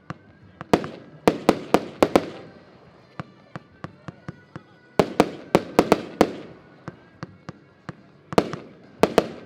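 Lesli Prezident Piro 144-shot firework battery firing: three volleys of several sharp bangs in quick succession, with fainter single pops between them.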